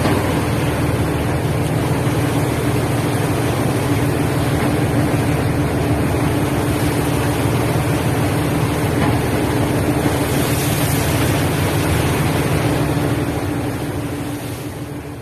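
Steady drone of a ship's engine under the rush of wind and heavy sea washing across the deck as the ship rolls. The sound fades out near the end.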